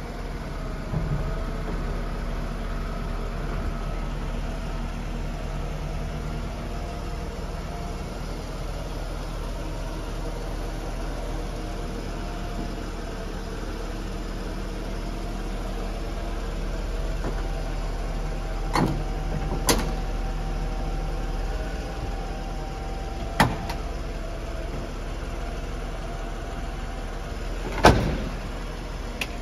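A 1995 Mercedes-Benz E320 Cabriolet's electro-hydraulic power soft top closing: a steady pump hum from about a second in, broken by sharp clunks as the tonneau cover and top frame move and seat. The loudest clunk comes near the end, as the top closes.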